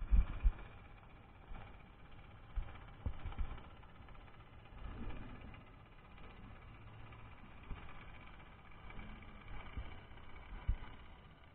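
Underwater ambience picked up by a submerged camera on the seabed: muffled low thumps and knocks at irregular intervals, the loudest right at the start, over a faint steady low rumble.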